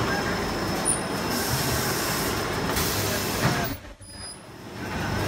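Automatic film-cutting machine running, a steady mechanical noise with a constant low hum and a thin high tone. The loudness dips sharply for about a second past the middle, then comes back.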